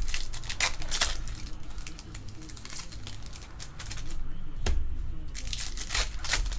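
Foil trading card pack wrapper crinkling and tearing as it is ripped open by hand, with the cards shuffled. Sharp crackles come in the first second and again over the last couple of seconds, with a quieter stretch between.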